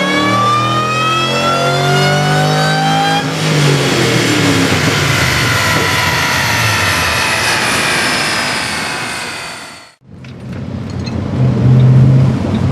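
Supercharged Mustang GT V8 accelerating hard, with the M90 Roushcharger's whine climbing steadily in pitch over the engine and exhaust. The sound changes about three seconds in and keeps climbing, then fades and cuts off near the ten-second mark. After that the engine runs steadily at lower revs.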